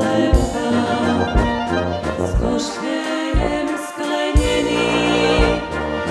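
Brass band (dechovka) playing live, with trumpets and trombones carrying the tune over low bass notes on a steady beat about once a second.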